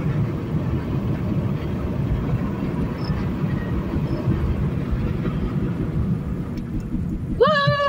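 Steady road and engine noise of a car being driven, heard from inside the cabin. Near the end a short high-pitched note comes in, holds, then falls away.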